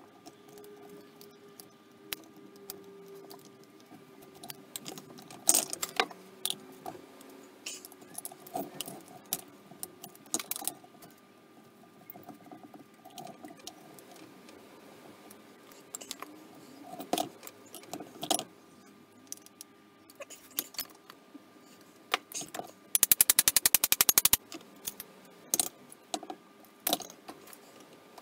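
Scattered metallic clinks and clicks from a screwdriver and loose parts as a Holley 390 cfm four-barrel carburettor is taken apart. About two-thirds of the way in, a fast, even run of clicks lasts about a second and a half.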